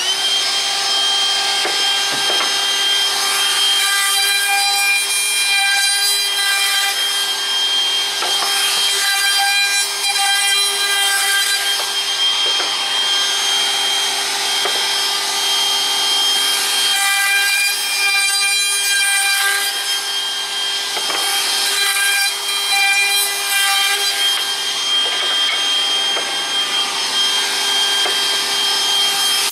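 DeWalt 20V cordless router with a 3/16-inch roundover bit running at a steady high whine while rounding over the edges of pine slats. The cutting noise swells and fades every couple of seconds, one pass after another.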